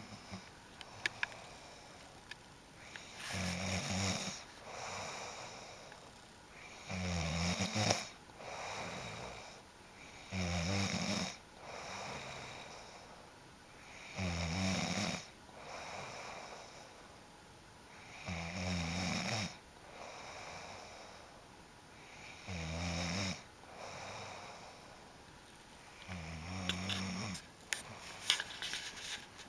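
A sleeping person snoring, a loud low snore about every four seconds with quieter breathing in between. A few sharp clicks come near the start and again near the end.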